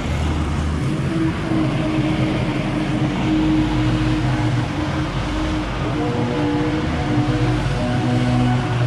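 Ferris FB2000 Hurricane stand-on blower and a gas backpack leaf blower running together at working speed, a steady loud engine-and-air noise.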